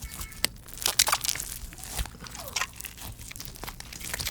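Slime being squeezed and pulled, giving many sharp, irregular crackles and soft pops.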